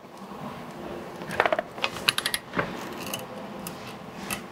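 Breaker bar and socket on a steel M20 flange nut giving off a series of irregular light metallic clicks and clinks, starting about a second and a half in. The nut is being turned an extra 60 degrees past its 90 ft-lb torque on a corn head stalk roll shaft.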